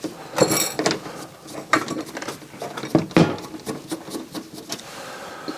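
Irregular clicks and light clattering of a circuit board and tools being handled on a tabletop while the board is taken out of a stereo receiver.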